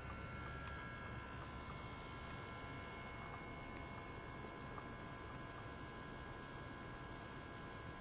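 Steady electrical hum with several faint, steady high tones above it; the low part of the hum drops a little about a second in.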